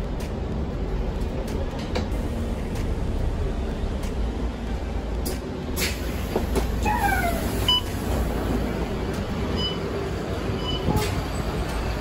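Inside a MAN A95 Euro 6 diesel bus: steady low engine and road rumble as it pulls in to a stop. A short falling squeal comes about seven seconds in, and a few sharp clicks are heard.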